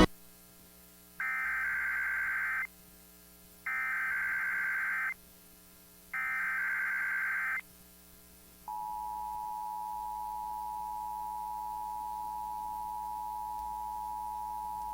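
NOAA Weather Radio Emergency Alert System (SAME) header for a Required Weekly Test: three bursts of warbling digital data, each about a second and a half long. A little over halfway through, a steady single-pitch weather radio warning alarm tone comes on and holds.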